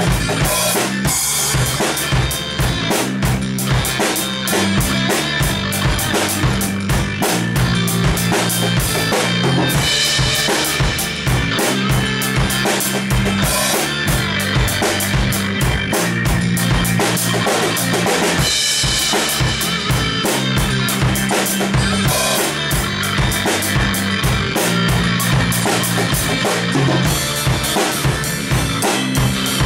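Drum kit played in a steady rock groove, bass drum, snare and cymbals, over a rock song recording with a bass line underneath.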